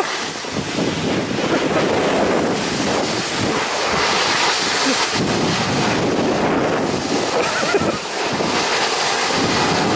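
Snow tube sliding down a packed snow run, giving a steady rushing hiss of the tube over the snow, mixed with wind buffeting the microphone.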